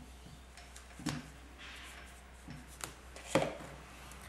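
Spanner working the nut on a motorcycle fork damper rod: two sharp metallic clicks, about a second in and again past three seconds, with a few fainter ticks between, over a low steady hum.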